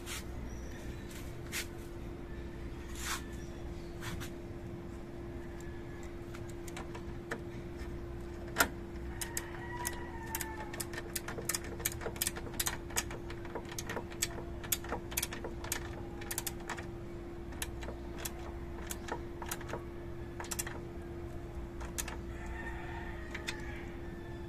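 Scattered sharp clicks and small metallic taps of pliers and wire connectors being worked on a car horn's bracket and wiring, thickest through the middle stretch, over a steady low hum.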